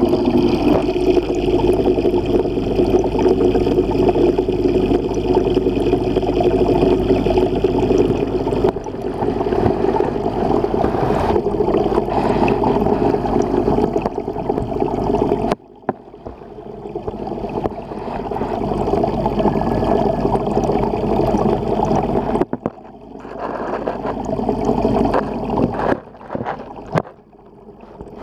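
Aquarium water gurgling and trickling with a steady hum, as from a tank filter running. The sound drops away abruptly about halfway through and twice more near the end, then builds back up each time.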